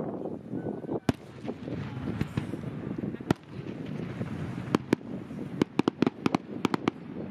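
Aerial firework shells bursting in sharp bangs: two single bangs in the first half, then a rapid run of a dozen or so bangs close together in the second half.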